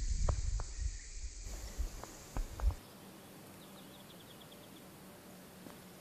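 Gusting wind buffeting the microphone over a field of tall grass, with a few sharp clicks. Just under three seconds in, it cuts to a much quieter background with a faint low hum and a brief high trill of about eight quick ticks.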